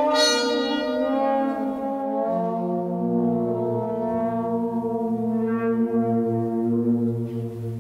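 French horn holding long, sustained notes that overlap with other sustained horn-like tones from the piece's electronics into a slowly building chord; lower notes come in about two and three seconds in.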